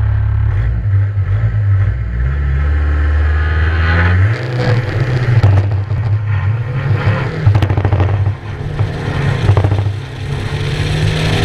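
Skoda Fabia RS 1.9 TDI rally car's four-cylinder turbodiesel engine held at steady revs at the start line, then launching about four seconds in and accelerating hard through the gears, with short dips at the gear changes. Clicks and knocks from the road surface come through as the car picks up speed.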